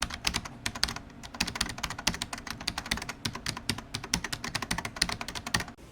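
Rapid, irregular clicking, many sharp clicks a second, like typing on a keyboard.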